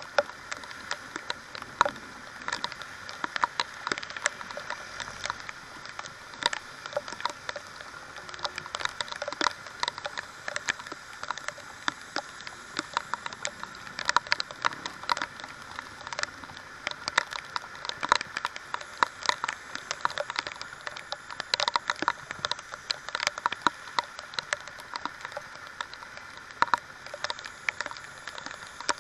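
Heavy rain: raindrops striking the camera close to the microphone in many irregular sharp taps, over a steady hiss of rain and a wet road.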